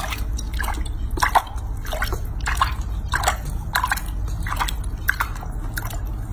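Water splashing and dripping in a shallow sink bath as a hand rubs a baby macaque's feet: short, irregular wet clicks about two or three a second, over a steady low hum.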